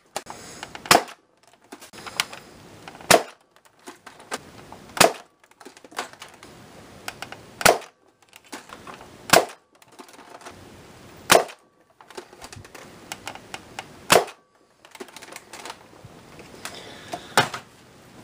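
Spring-powered Buzz Bee Thermal Tracker foam-dart blaster firing eight single shots through a chronograph, about two seconds apart. Softer clacking between shots comes from the blaster being re-primed.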